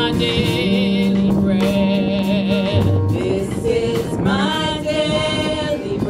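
Gospel music: voices singing with vibrato over instrumental backing, with a held low note and a steady beat.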